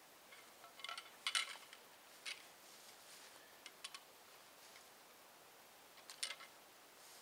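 Light metal clinks and rattles of camp gear being handled, in short clusters about a second in, around two and four seconds, and again near six seconds.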